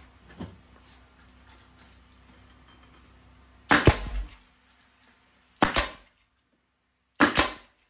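Pneumatic finish nailer firing three times into carpet-covered wood, three sharp shots about one and a half to two seconds apart, the first about halfway through.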